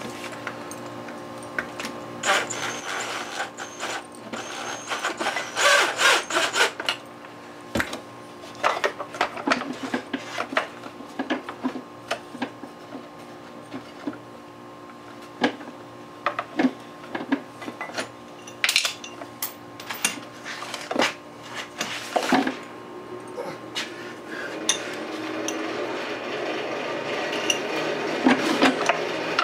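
Hand tools and parts of a Stihl TS400 cutoff saw being handled during reassembly: scattered clicks, knocks and rubbing of metal and plastic parts.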